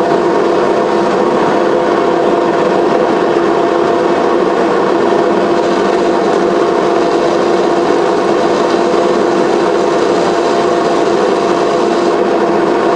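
Power grinder running steadily while grinding out the hollow of a 16-inch glass mirror blank: a continuous grinding rasp over a steady motor hum with several fixed tones.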